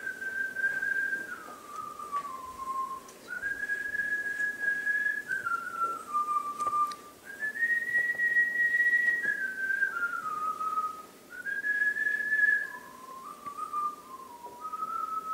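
A slow melody whistled by a person, in long held notes, each phrase stepping downward before the next begins higher.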